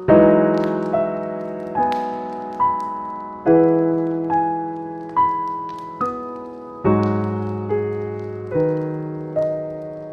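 Slow, calm solo piano playing soft chords and single notes, each struck and left to fade, a new note about once a second. Faint crackles of a burning fireplace fire sit beneath.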